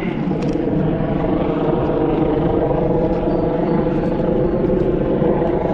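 Steady engine drone holding one constant pitch, with no breaks.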